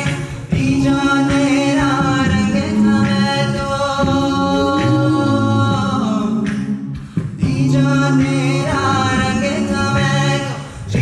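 Mixed-voice South Asian fusion a cappella group singing through microphones, with layered voices holding harmonised chords and no instruments. The sound breaks off briefly about two-thirds of the way in, then the voices come back in.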